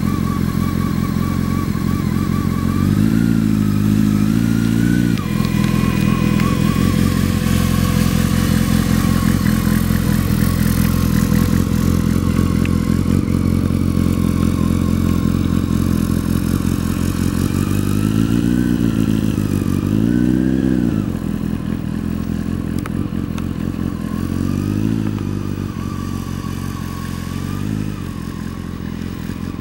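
Motorcycle engine running at low speed through slow cone-slalom riding, the revs rising and falling in short throttle blips a few seconds in, twice around two-thirds through and twice more near the end. It grows fainter in the last third as the bike moves away.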